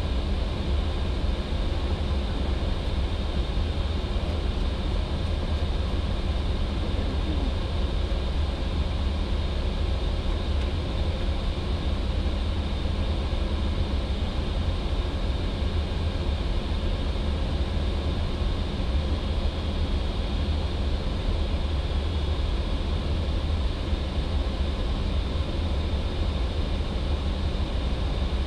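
Steady flight-deck noise of an Airbus A320 in flight: a low rumble under an even rush of air, with a faint high whine.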